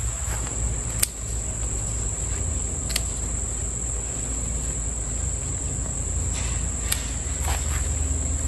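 Scissors snipping bottle gourd vine tips, three sharp snips spread over several seconds. Under them runs a steady high insect chorus of crickets and a low rumble.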